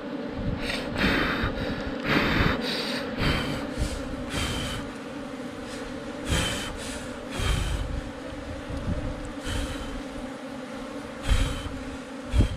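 Honeybees buzzing steadily around a ground nest being opened, a constant low hum. Over it come repeated short bursts of rustling and scraping as gloved hands work honeycomb loose from the soil, with the sharpest ones near the end.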